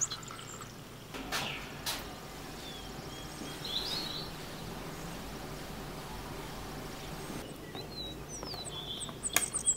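Faint steady background hiss with a few short bird chirps, about four seconds in and again near eight seconds. Two sharp clicks in the first two seconds and a quick run of clicks just before the end.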